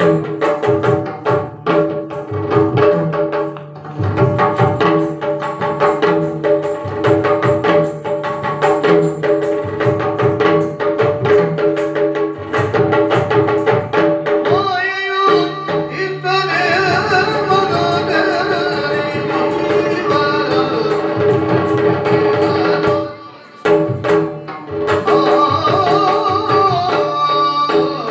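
Yakshagana accompaniment: rapid hand-drum strokes over a steady held drone. A singer's voice joins about halfway through.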